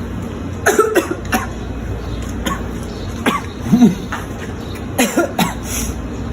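A person coughing in three short bouts, about two seconds apart.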